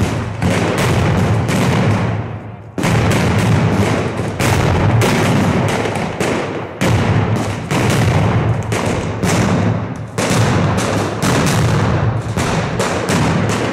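Fireworks going off in a rapid, continuous barrage of loud bangs, several a second, with a short lull about two and a half seconds in.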